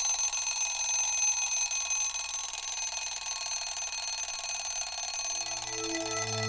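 An alarm ringing, a steady high-pitched ring with a rapid pulse, as on waking up. Background music with low sustained notes comes in about five seconds in.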